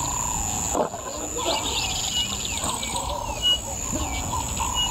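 Two male lions feeding on a zebra carcass, growling low as they tear and chew at the meat. A bird gives a few short chirps in the background.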